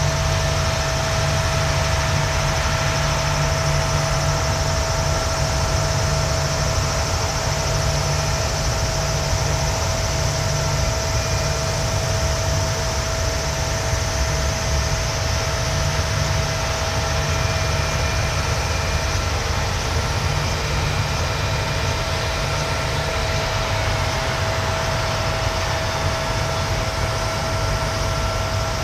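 Airbus A320-200 jet engines running at low power as the airliner taxis: a steady drone with a low rumble and a held whining tone.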